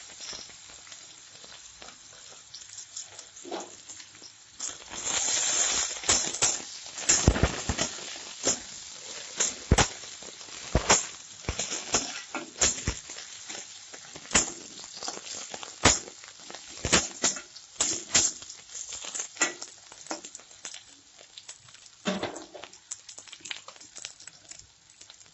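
Sliced onions sizzling in hot oil in a metal kadai, with a spatula stirring them and scraping and knocking against the pan in many sharp, irregular strokes.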